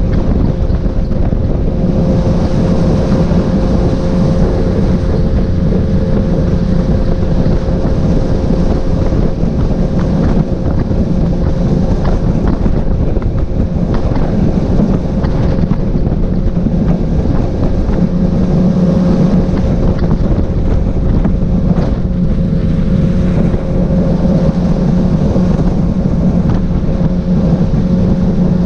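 Tiller-steered outboard motor running steadily at speed, with wind buffeting the microphone and water rushing past the hull.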